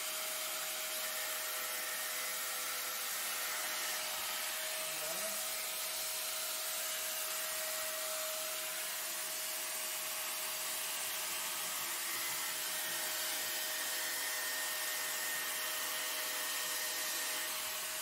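Angle grinder with a cutting disc running steadily, a high even whine over a strong hiss, as the disc cuts into a hard metal ring.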